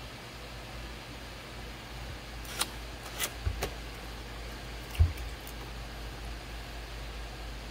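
Electric potter's wheel running with a steady low hum. A few sharp clicks come a little past two seconds in, and a louder knock about five seconds in.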